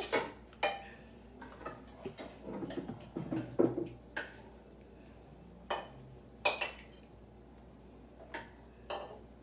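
Metal ladle clinking against a ceramic bowl and cooking pot as stew is dished out: about seven separate sharp clinks spread over the seconds, some ringing briefly.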